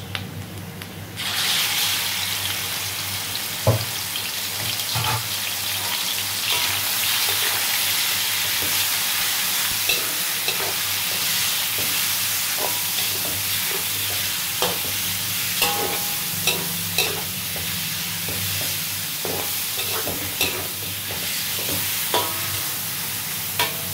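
Beef liver sizzling as it drops into hot oil in an aluminium wok about a second in, then frying steadily while a metal spatula scrapes and clacks against the pan as it is stirred.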